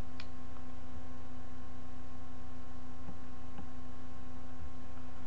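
Steady electrical hum with hiss from the recording setup, and a faint mouse click near the start.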